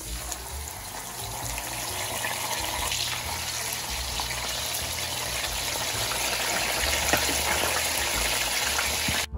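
Mackerel fillets frying in hot oil in a frying pan: a steady sizzling hiss with scattered pops, growing a little louder as the fillets are laid in with a spatula.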